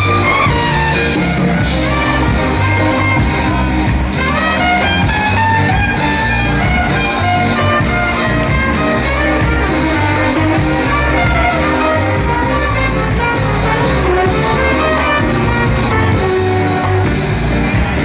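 A live ska band playing an instrumental, with a trumpet lead over saxophone and trombone, electric guitar, keyboards and a drum kit keeping a steady beat.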